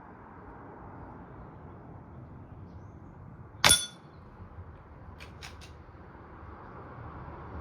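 Air rifle firing a single shot, a sharp crack with a brief metallic ring, followed about a second and a half later by three faint, quick ticks.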